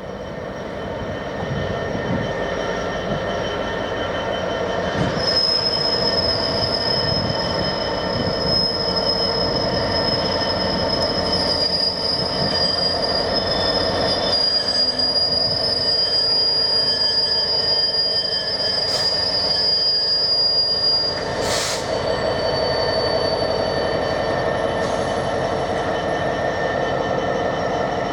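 A train running on the rails with a steady rumble and a long, high-pitched wheel squeal. The squeal sets in about five seconds in and holds for roughly a quarter of a minute, then comes back more briefly, with a sharp click between.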